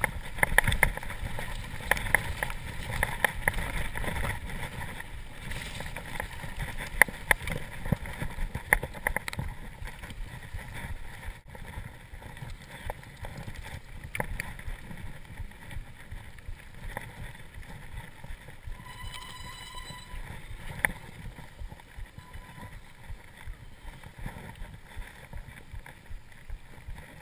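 Mountain bike riding over a stony gravel trail, picked up by a GoPro on the rider: tyres crunching on loose stones, the bike rattling and knocking over bumps, with wind on the microphone. The knocks are densest and loudest in the first third, and about two-thirds of the way through a high whine sounds for about a second.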